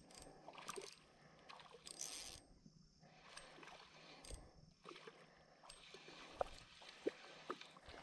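Faint, irregular clicking of a fishing reel being cranked, with light water splashing, as a hooked fish is played in a creek.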